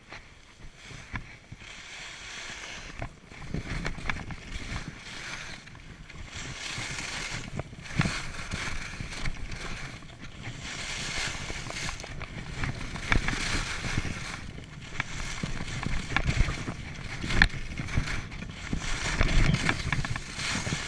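Skis carving and scraping over packed snow in a fast downhill run, with wind rushing over the camera microphone. The noise surges in waves every second or two, building from quiet over the first few seconds.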